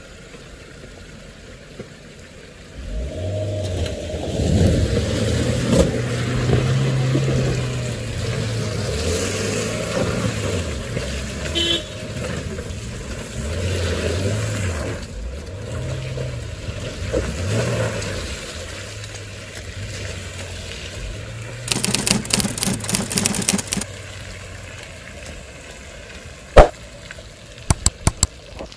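A 4x4's engine revving up and down repeatedly under load, starting a few seconds in. A brief rapid rattle comes about three quarters of the way through, and a sharp knock near the end.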